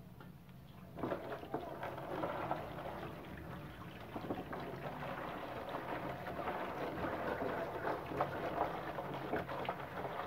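Thin stream of water pouring into a plastic basin, splashing and pattering on the plastic around an old paintbrush. It starts about a second in.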